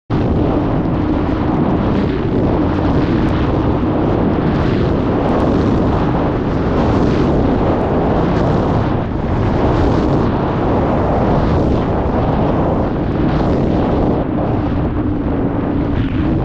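Wind rushing over the camera microphone at skiing speed, mixed with the hiss of a monoski's edges carving groomed snow; the noise swells and eases every second or two with the turns.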